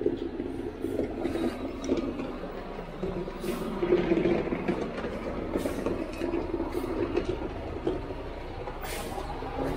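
Concrete mixer truck's diesel engine running steadily as the truck pulls slowly up a drive, with a few short, sharp clicks or hisses over it.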